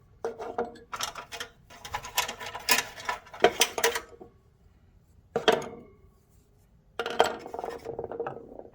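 Handfuls of screwdrivers clattering against each other and the steel toolbox as they are gathered out of it: a long run of rattling clinks, a brief one about halfway, and more near the end.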